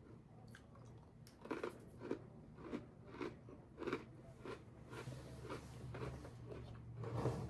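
A person chewing crunchy Oreo cookies, a regular run of crunches a little more than once every half second that softens over the last few seconds.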